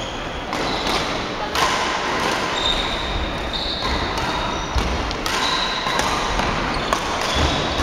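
Badminton rally: sharp racket strikes on the shuttlecock about once a second, with sneakers squeaking briefly on the court floor, echoing in a large hall.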